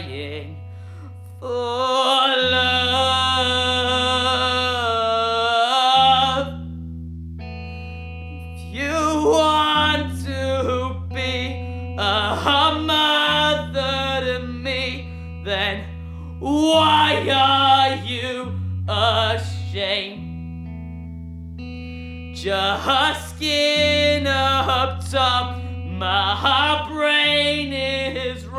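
Emo-punk band recording: electric guitar and bass with singing, in phrases of a few seconds over held bass notes.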